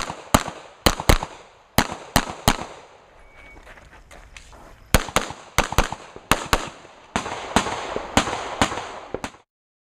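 Semi-automatic pistol fired rapidly, mostly in quick pairs of shots, with a lull of about two seconds in the middle before more strings of shots. The sound cuts off abruptly near the end.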